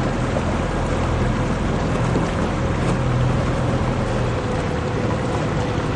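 A motorboat engine running at a steady speed: a constant low hum with a fainter, higher steady tone over a rush of noise.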